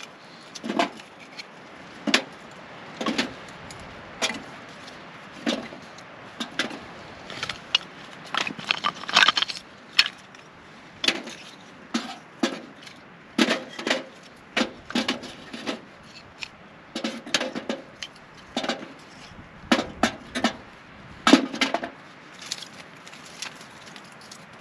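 Dry split kindling sticks clacking together as they are handled and stacked into a small tent wood stove: irregular light wooden knocks and rattles, about one or two a second, some in quick clusters.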